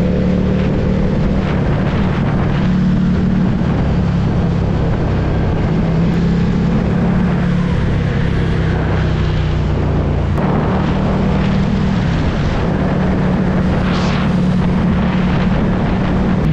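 Motorcycle engine running at a steady cruise, heard from the rider's seat, with wind noise rushing over the microphone.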